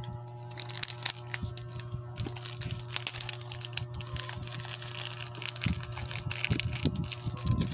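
A clear plastic bag crinkling and crackling as it is handled and opened, many short crackles in a row.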